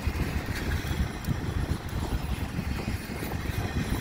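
Double-stack intermodal freight cars rolling past: a steady low rumble of steel wheels on rail, with a few sharp clicks and clanks from the wheels and couplings.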